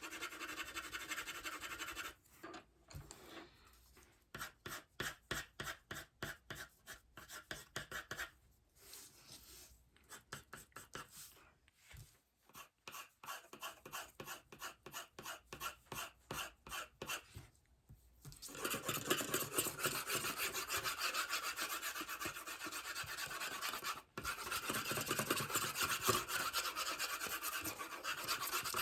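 Pencil shading on paper: short back-and-forth scratching strokes, about two a second through the middle stretch, with denser, continuous scratching at the start and through the last third.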